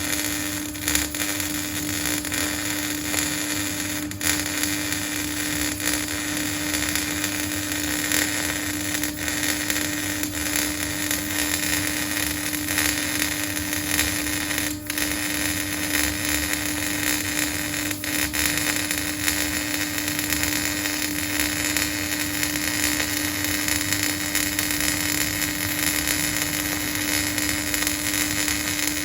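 Electric arc welding: the arc's continuous crackling hiss, broken only by a few brief dips, over a constant hum.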